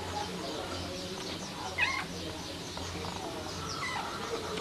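A domestic cat gives a short meow about two seconds in, with a weaker short call near the end. Faint bird chirps are in the background.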